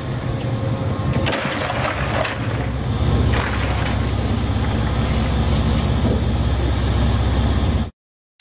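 Steady rushing, water-like noise over a low rumble from the boat, with the rumble growing about three seconds in. A few sharp knocks sound through it as the big amberjack is handled into the fish hold.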